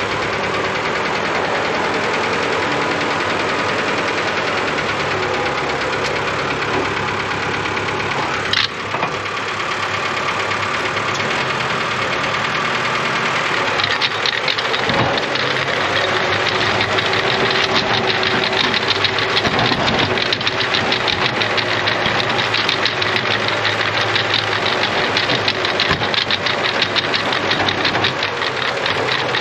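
Ford 2110 tractor's diesel engine running steadily as it pulls a drum core aerator through the turf. About halfway in a rapid clatter grows louder over the engine, and there is a single sharp click a little before that.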